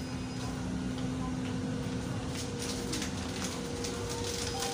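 Convenience-store room tone: a steady electrical hum over low background noise, with faint light taps or steps in the second half.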